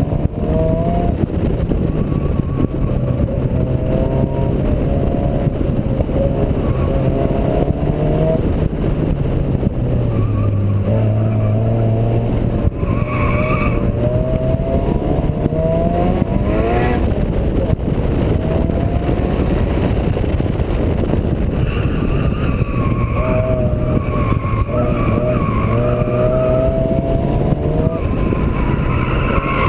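Turbocharged Honda D16 four-cylinder engine running hard on track, its revs climbing and dropping back again and again with gearchanges and lifts, over heavy wind and road noise. Tyres squeal at times through the corners.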